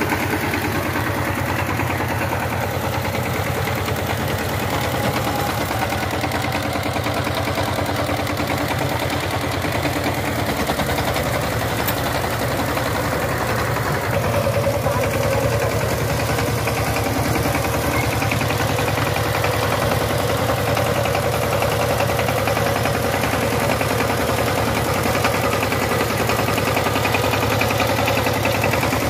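Power tiller's diesel engine running steadily, with a rapid, even firing beat.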